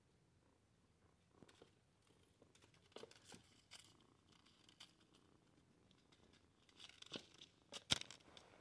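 A kitten batting a crumpled paper ball across a wooden floor: scattered soft rustles and light taps, with a sharper knock near the end as the kitten comes close.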